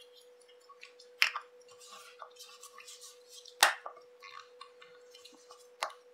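Sharp clicks and small knocks of a watch case being handled as its top bezel with the crystal is fitted on: three distinct clicks, about one second, three and a half seconds and six seconds in, the middle one loudest, with faint taps between. A faint steady hum sits underneath.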